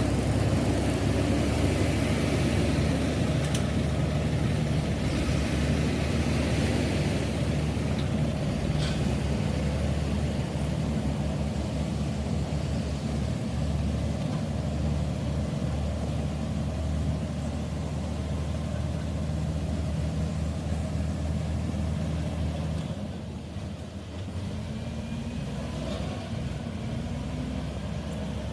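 Komatsu D85E-SS crawler bulldozer's diesel engine running steadily under load while pushing dirt. About two-thirds of the way through, the engine note drops briefly, then it revs back up with a rising pitch near the end.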